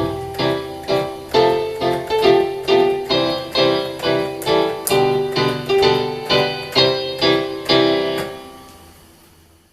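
Background music: piano notes played in a steady rhythm, fading out near the end.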